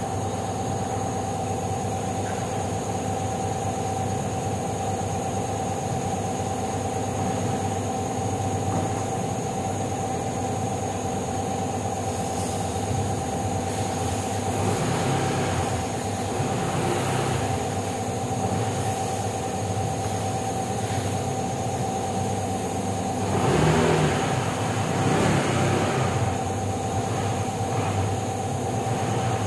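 Honda PCX 160 scooter's single-cylinder eSP+ engine running steadily, with louder surges a little past halfway and again, more strongly, near the end as the throttle is opened and the scooter is ridden.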